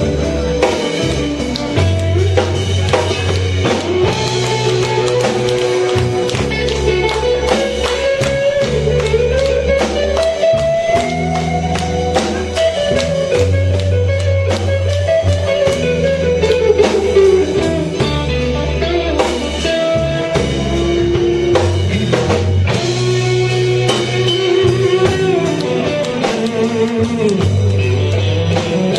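Live blues band playing: a Stratocaster-style electric guitar over a steady drum-kit beat, its lead line bending up and down in pitch.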